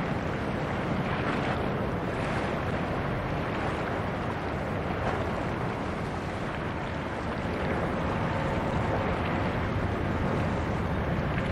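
Steady rush of water from a passing bulk carrier's bow wave and wake, mixed with wind buffeting the microphone.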